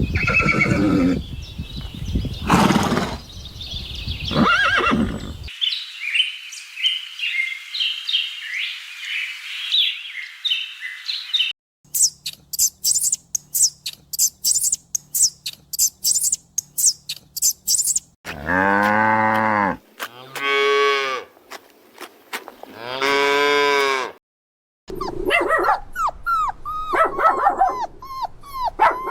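Calls from several different farm animals, one clip after another. Midway there are three long, low calls with an arching pitch.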